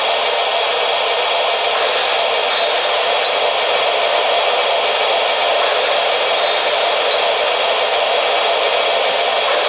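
O-gauge model locomotive standing with its sound system and smoke unit running: a steady hiss with faint high tones in it, level throughout.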